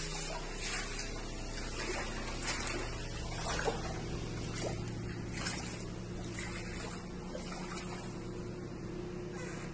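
Muddy floodwater rushing across a flooded floor and around furniture, with scattered splashes and knocks, over a low steady hum.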